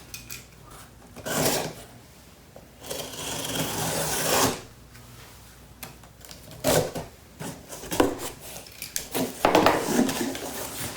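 A cardboard shipping box being opened and unpacked: a long scratchy rustle of cardboard and packing a few seconds in, then several sharp knocks and clicks as the contents are handled.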